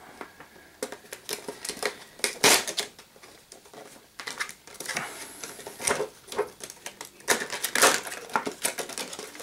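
A clear plastic retail box being opened and handled: a run of irregular plastic clicks, crinkles and scrapes, with a few louder clatters.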